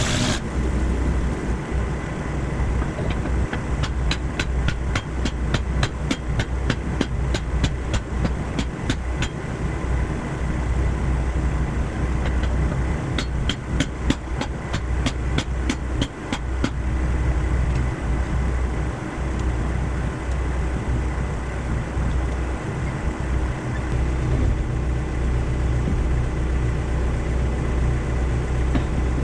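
A motor running steadily with a low hum, and a fast run of regular clicks or knocks from about four seconds in until about seventeen seconds.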